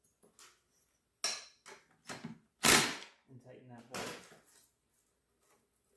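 A few sharp, irregular clicks and knocks of hand tools and metal parts during the fitting of the ignition coil on a Powermore 140cc mower engine, the loudest a little under three seconds in.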